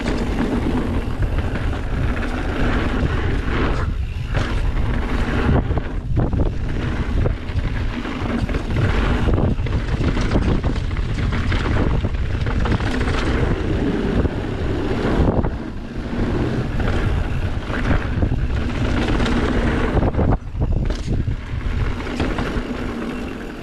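Mountain bike descending a trail: wind rushing over the action camera's microphone, mixed with the rumble and rattle of the tyres and bike on the dirt, with a few brief dips in loudness.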